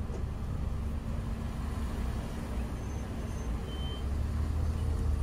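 Low rumble of motor vehicles around a car park, growing louder about four seconds in, with a few brief high tones around the middle.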